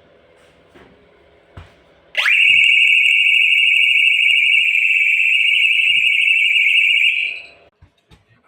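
Alarm sounder on a Lun-23 security alarm system going off in an alarm test. After a couple of faint clicks it sweeps up quickly into one loud, steady high-pitched tone, holds it for about five seconds, then stops.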